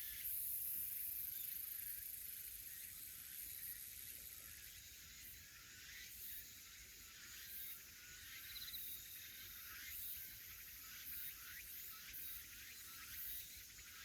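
Faint, high-pitched shrilling of cicadas and other insects, with pulses repeating in the top range in the second half and a brief high trill about nine seconds in.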